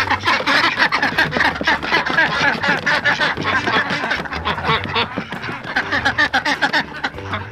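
A flock of domestic ducks quacking over one another in a dense, continuous chatter as they are let out of their duck house.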